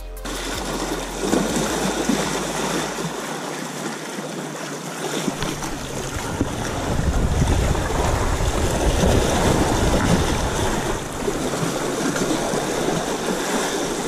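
Sea surf washing against shoreline rocks: a steady rushing wash that swells louder through the middle, with deep rumbles.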